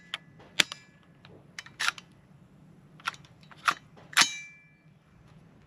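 Sharp metallic clicks and clacks from an AR-15 chambered in 7.62x39 as its action is worked by hand, typical of clearing a feeding problem from a troublesome magazine. The loudest clack comes about four seconds in and rings briefly.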